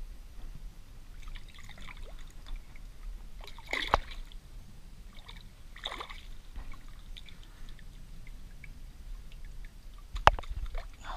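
Water sloshing and trickling around mangrove roots as a hooked mangrove snapper is brought up by hand. There are two louder splashes about four and six seconds in, and a sharp knock near the end.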